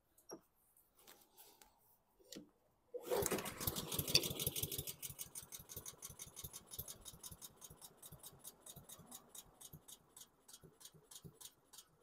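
Honda GCV160 lawn mower engine catching about three seconds in and running rough and "doggy", its firing pulses slowly fading. The engine is bogging from the fuel or carburetion trouble the owner has been chasing; he suspects a dirty air filter is suffocating it.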